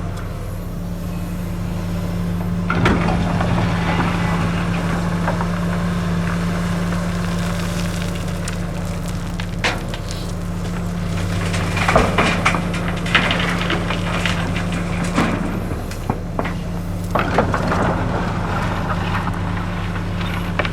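Komatsu PC450LC-7 excavator's diesel engine running steadily under load, with gravel clattering and scraping in irregular bouts as it is dug and loaded.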